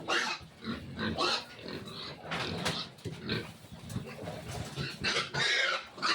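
Three-day-old piglets squealing in a run of short, high cries, with a longer, louder squeal near the end.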